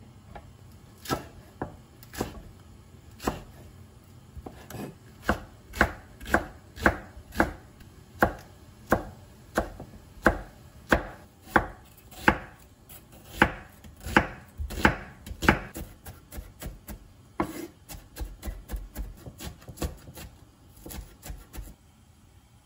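Kitchen knife chopping food on a cutting board in separate strikes, about one or two a second, then a quicker run of lighter chops near the end.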